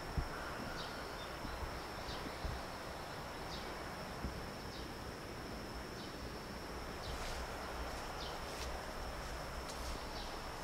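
Insects shrilling in one steady high tone. Short high chirps come every second or so, more often in the second half, over a low background rumble.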